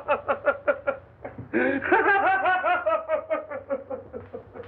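An old man's cackling laughter: a run of quick "ha-ha" syllables breaks off about a second in. After a short pause a longer run follows, slowly falling in pitch and fading.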